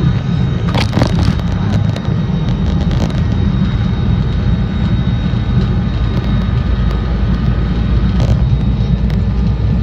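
Cabin noise of a Bombardier Challenger 350 business jet on its takeoff roll: a loud, steady low rumble of the twin Honeywell HTF7350 turbofans and the undercarriage, with a thin high whine. There are a few brief knocks or rattles, about a second in, around three seconds and near the end.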